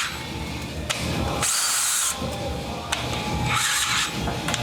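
Power drill with a 9/16-inch bit boring out the damaged M14 x 1.5 plug thread in a transfer case to take a helicoil, run in two short spells with light pressure.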